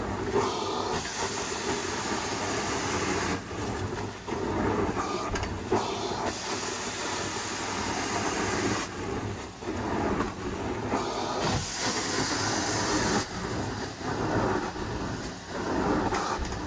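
Hot-water extraction carpet-cleaning wand running over carpet: a steady rushing hiss of vacuum suction and spray, with brief dips between strokes.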